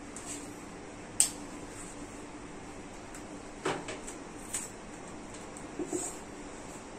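Sharp clicks and clacks of a Syvo 3110 aluminium tripod's telescoping legs being pulled out and their black leg clips snapped, the loudest click about a second in and a few smaller ones later.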